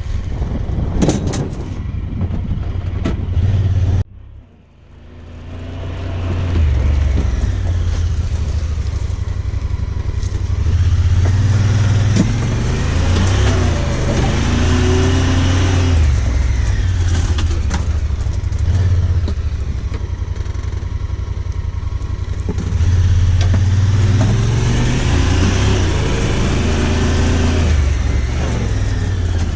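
A vehicle engine runs while driving, speeding up and easing off twice. The sound drops away abruptly about four seconds in, then the engine noise builds back up.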